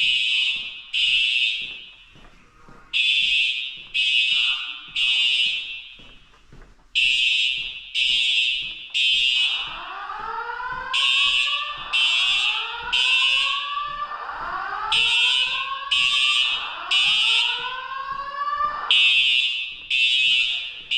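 Fire alarm horns sounding the temporal-3 evacuation signal: three short, high blasts a second apart, then a pause, repeating. From about ten seconds in, a lower rising whoop tone sweeps up about five times over the blasts, then stops shortly before the end.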